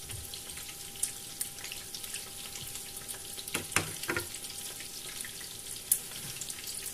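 Egg-and-cornflour-coated chicken pieces shallow-frying in hot oil in a frying pan: a steady sizzle with fine crackling. A few sharper clicks come about halfway through and once more near the end.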